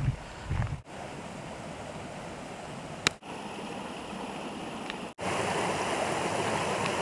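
Steady rushing of running water, heard as several short clips joined by sudden cuts, with a sharp click about three seconds in.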